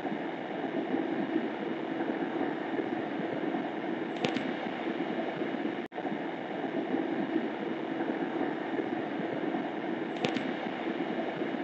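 Steady hum and rush of a parked vehicle's cabin picked up by a dashcam microphone, with two brief faint high chirps. The sound cuts out for an instant about six seconds in.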